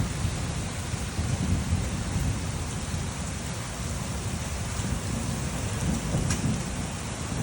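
Heavy rain falling steadily, with a continuous low rumble of thunder under it. A single sharp click, such as a large drop hitting something hard, comes about six seconds in.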